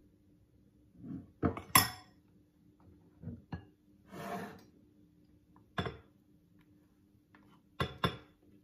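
A metal spoon clinking and scraping against a glass mixing bowl and a ceramic bowl: a handful of separate knocks, the loudest a pair about a second and a half in, and a short scrape about four seconds in.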